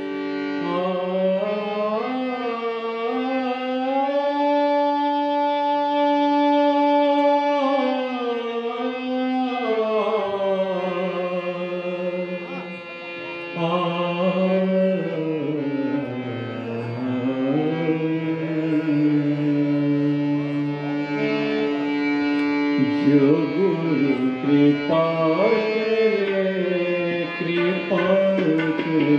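Indian devotional music: a male voice sings long, slowly sliding held notes over a steady harmonium and tanpura drone. Tabla strokes come in during the last few seconds.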